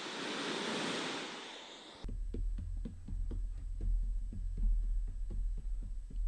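A swelling whoosh of noise that rises and fades away, then about two seconds in, background music cuts in with a deep bass and a quick, steady beat.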